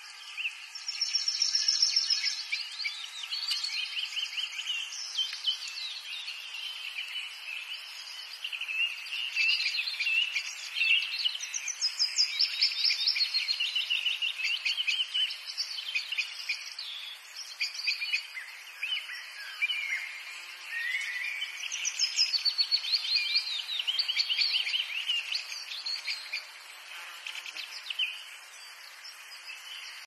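A busy chorus of high-pitched chirping and trilling from many small animals, the rapid calls overlapping and swelling and fading in loudness.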